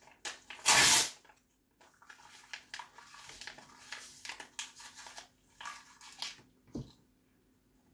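A sheet of printed photo paper ripped with the teeth in one loud tear about half a second in, then the torn piece crinkled and chewed in a run of short crackling rustles. A low thump near the end.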